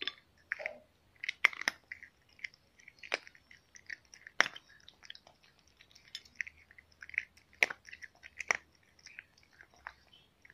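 A cat chewing dry kibble: an irregular run of crisp crunches and small clicks, with a few sharper, louder cracks as pieces break.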